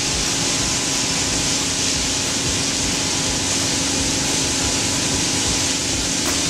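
Stone stacker conveyor running and crushed limestone pouring onto the stockpile: a steady hiss with a constant low hum underneath.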